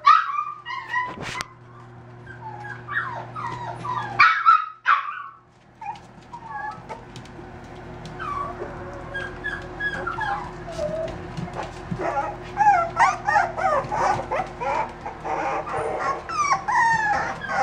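Five-week-old miniature dachshund puppies whining, many short high calls that bend up and down in pitch, coming thick and fast in the second half, with scattered light clicks.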